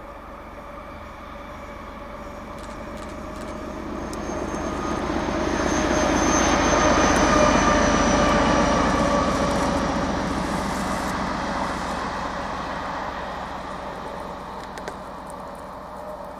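ČD class 754 diesel-electric locomotive hauling a passenger train past. Its engine and a high whine grow louder to a peak about seven seconds in, then fade away with the rumble of the coaches on the rails.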